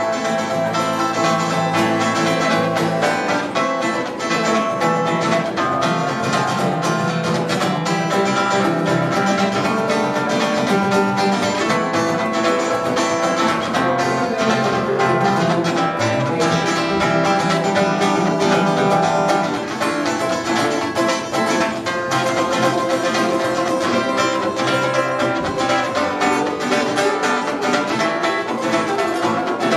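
Acoustic guitar and electric guitar playing an instrumental passage together, with steady strumming under picked melody lines.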